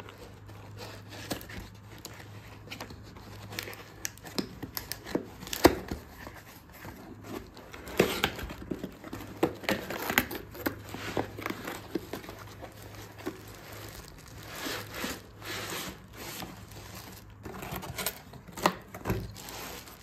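A cardboard box being pulled open and unpacked by hand: tearing and scraping of the cardboard, irregular knocks, and crinkling plastic packing.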